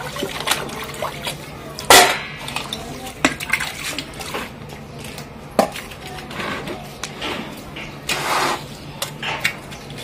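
Stainless-steel utensils clinking and knocking against each other while being washed by hand, with water sloshing and splashing in a bucket and a wide steel plate. The loudest clank comes about two seconds in, with scattered lighter clinks after it and a longer splash near the end.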